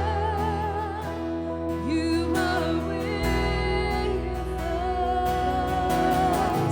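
Live worship band playing: a singer holding long notes with vibrato over bass and guitar.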